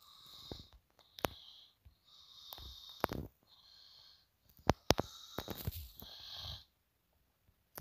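Fingertips tapping on a phone's touchscreen: several sharp clicks, with short soft hisses between them that sound like breathing close to the microphone.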